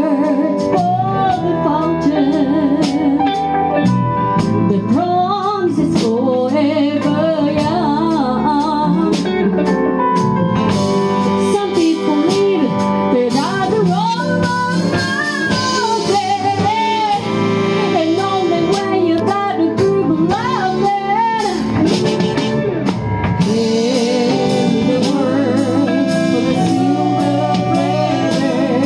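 Live band playing a soul ballad: a woman sings a gliding melody into a microphone over saxophones, electric guitar, keyboard and a steady drum beat.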